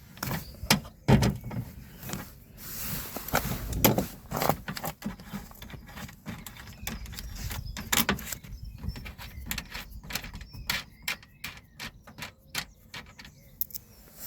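Ratchet wrench with a 10 mm socket clicking as it undoes the bolts holding a car door's window guide, among scattered knocks of the tool against the door's metal; the clicks come thickest and quickest in the last few seconds.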